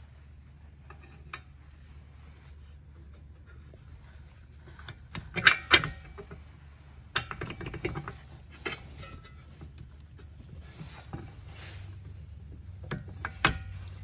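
Metal clinks and knocks as a C3 Corvette headlight assembly's steel pivot shaft and brackets are handled and pushed through new plastic bushings into the bracket. The loudest knocks come about five and a half seconds in, and single clicks follow every second or two.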